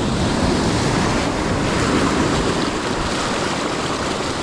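Ocean surf washing onto the beach, a steady rushing wash that swells slightly partway through, with wind buffeting the microphone.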